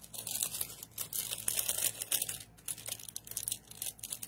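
Plastic bag being handled and crinkled, a dense run of small crackles and rustles, busiest in the middle.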